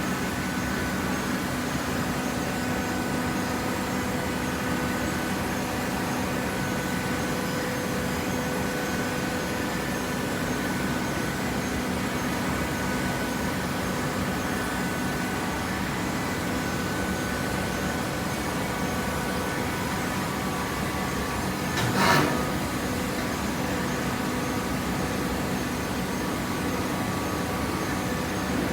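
Horizontal hydraulic cardboard baler running with a steady mechanical hum. There is one sharp knock near the end.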